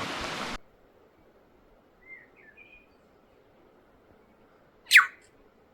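Rushing stream water that cuts off suddenly half a second in, leaving quiet forest. A few faint bird chirps come around two seconds in, then one loud, very quick sweeping bird call about five seconds in.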